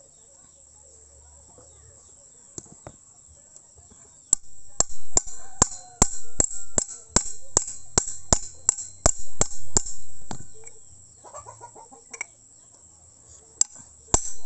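A steel seal driver is tapped in a steady series of sharp metal taps, about three a second, driving a new oil seal into a motorcycle front fork tube. The taps start about four seconds in, pause briefly, and pick up again near the end. In the pause a chicken clucks briefly.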